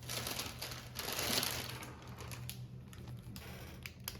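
Rustling and small clicks of things being handled, with a louder stretch in the first second and a half, over a low steady hum.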